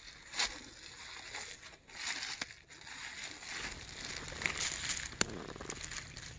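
Forest floor litter and undergrowth rustling and crackling as they are disturbed, with a few sharp clicks.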